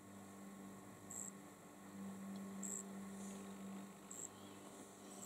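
Faint steady electrical mains hum, with short faint high blips recurring about every second and a half.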